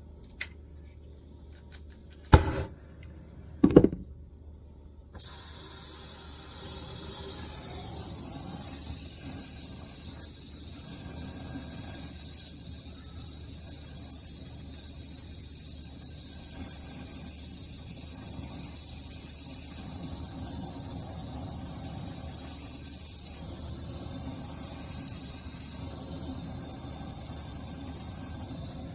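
A few light clicks and knocks, then about five seconds in a steady hiss of rushing gas starts suddenly and keeps going, strongest in the high pitches.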